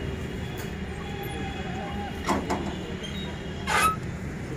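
A vehicle engine running steadily with a low, rhythmic rumble. Two short sharp knocks come a little past two seconds in, and a louder short sound near the end.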